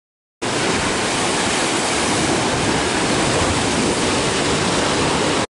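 Rough lake water surging and washing over a sloping rock ledge: a loud, steady rush of water that starts and cuts off abruptly.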